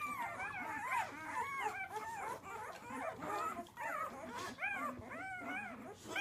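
A litter of one-week-old Labrador retriever puppies whimpering and squealing together, many short rising-and-falling cries overlapping: newborn pups complaining because their mother has left the whelping box.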